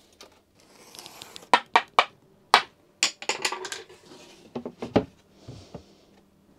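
A run of sharp knocks and clatters from thin plywood panels being handled, set down and fitted, with short stretches of soft scraping in between.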